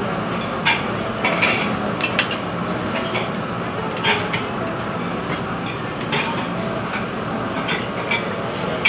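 Busy buffet dining room: a steady din with scattered sharp clinks of cutlery and plates, several times.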